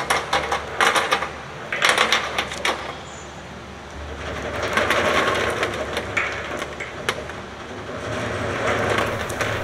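Hard fried peneram rings clattering and sliding down a stainless steel chute as a gloved hand sweeps them off a perforated metal tray: quick bunches of small knocks in the first three seconds, then a longer scraping rattle from about four seconds in.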